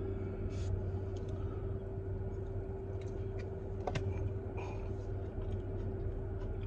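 Car air conditioning running with the engine on, heard inside the cabin: a steady low hum with a constant whine over a blowing hiss. A few small clicks come from handling and eating the food.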